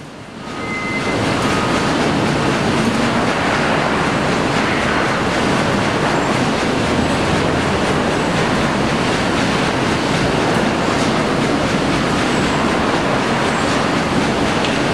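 Sawmill machinery running: a loud, steady mechanical din that builds up over the first second or so and then holds even.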